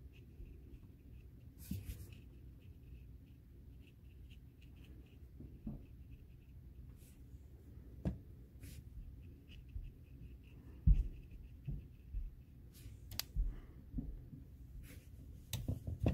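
Scattered soft taps and scratches of a small watercolour brush dabbing on paper and working paint in a plastic palette pan, with a few low knocks, the loudest about eleven seconds in.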